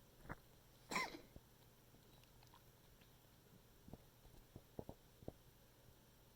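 A pet's cough during a coughing fit: one sharp cough about a second in with a short falling tone, after a smaller one just before it, then a few faint ticks.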